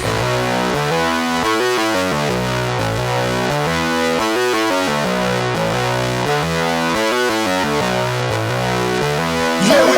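Music: a synthesizer passage of sustained chords that change in steady steps, without a heavy beat. Just before the end a louder, denser part of the song comes back in.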